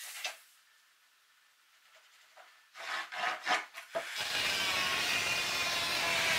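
A short scratch and a few wooden rubbing scrapes on a plywood board, then about four seconds in a handheld electric circular saw starts and runs steadily as it begins cutting the plywood.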